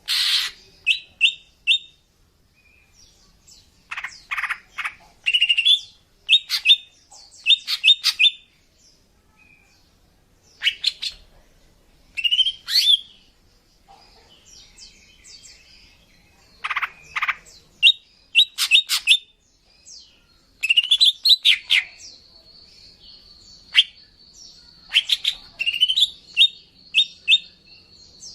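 Female green leafbird (cucak ijo) calling: short sharp chirps and quick rising notes in clusters of three or four, separated by short pauses. A thin, steady high whistle runs beneath the calls over the last several seconds. These are female calls used as a lure to draw in males.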